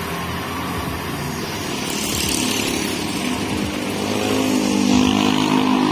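Street traffic: a motor vehicle's engine running past, growing louder from about four seconds in.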